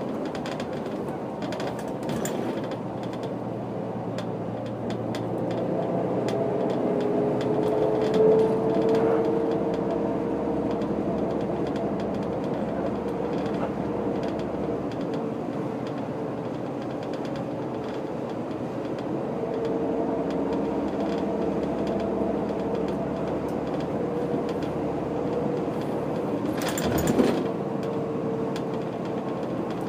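Diesel engine of a Setra S 315 UL bus with manual gearbox, heard from inside the passenger cabin while driving, its note rising a few seconds in and again past the middle. A short knock comes near the end.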